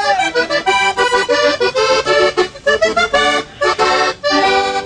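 Vallenato button accordion playing a lively run of notes and chords, broken by brief pauses about two and a half, three and a half and four seconds in.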